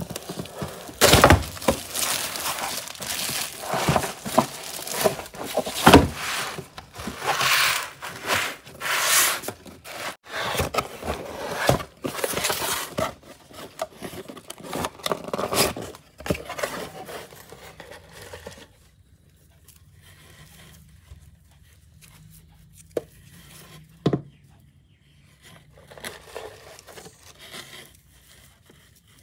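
Plastic shrink-wrap crinkling and tearing as it is pulled off a cardboard box, with scrapes and taps against the cardboard. About two-thirds of the way through it goes much quieter, with a couple of soft knocks and faint rustling.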